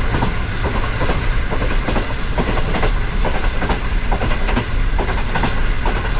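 Train wheels clattering over rail joints: a quick, slightly uneven run of sharp clacks, about four a second, over a steady low rumble.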